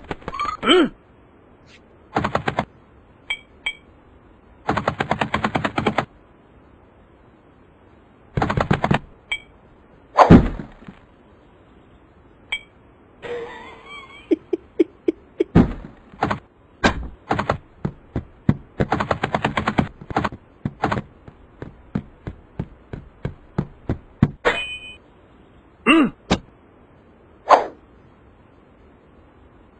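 Cartoon sound effects: repeated short bursts of rapid clicking clatter, each about half a second to a second and a half long, between single sharp clicks and knocks, with a few brief squeaky pitch glides, one falling about ten seconds in.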